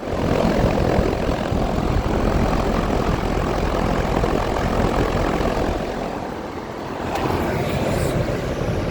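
Outdoor heat pump unit running in cooling mode, its condenser fan making a steady whoosh. The sound eases off briefly about six seconds in, then builds again.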